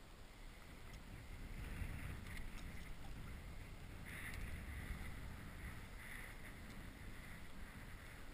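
Strong wind buffeting the microphone with water splashing around a kayak, the splashing coming and going in irregular patches.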